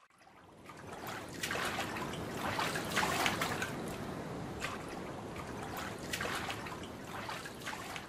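Water-splash sound effect layered over an ocean-beach ambience clip, playing back. Irregular splashes of water over a steady wash, fading in over the first second.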